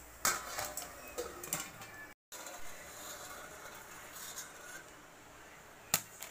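Popcorn kernels popping in a hot pan: sharp, irregular pops for about two seconds. The sound then cuts out briefly, and only a few faint clicks follow, with a sharp click near the end.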